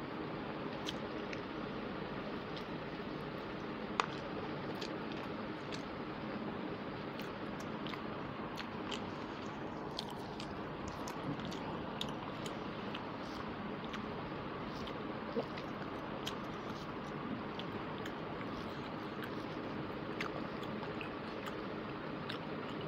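Eating by hand, close to a clip-on microphone: fingers squishing rice and chicken curry together on a plate, chewing and mouth smacks, heard as scattered small clicks over a steady hiss. One sharper click comes about four seconds in.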